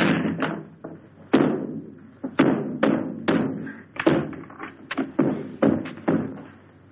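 Repeated banging on a wooden door: about fifteen hard knocks in an uneven run of roughly two a second, each with a short echoing tail.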